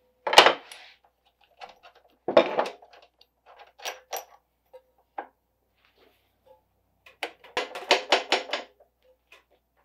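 Scattered metallic clicks and knocks as the nut and the tight drive pulley are worked off the cutterhead shaft of a DeWalt DW735 planer. Near the end comes a quick run of about eight clicks in a second.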